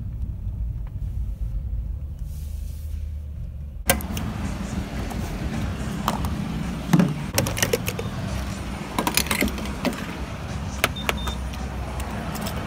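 Low rumble inside a parked car, then, after a sudden change about four seconds in, a steady outdoor hiss with a scatter of clicks and knocks as a car's fuel cap is twisted off at the filler.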